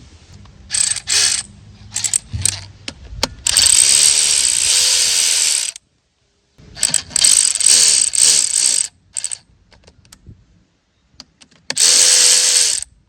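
Ratchet wrench clicking: a few separate clicks, then three quick runs of rapid ratcheting, the last one shorter, while the range switch is being removed from the CVT.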